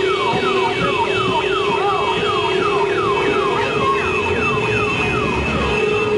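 Electronic vehicle siren sounding: a quick falling whoop repeated nearly three times a second over a steady held tone.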